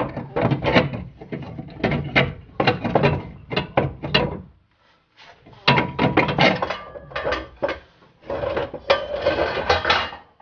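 Irregular metallic clattering and knocking of tools and metal parts while the spare wheel's mounting is being undone, in two busy stretches with a short pause in the middle.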